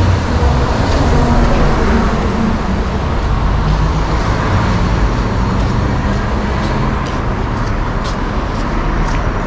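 Steady low rumble of road traffic and a nearby vehicle engine, with an engine hum most prominent in the first two seconds.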